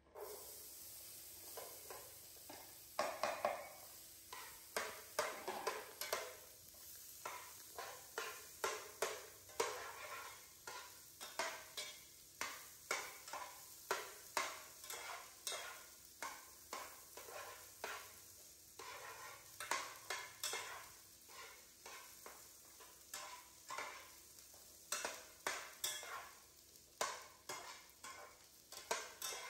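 Corn kernels frying in butter in a pan, sizzling from the moment they go in, with a metal spatula scraping and knocking against the pan as they are stirred, about one or two strokes a second.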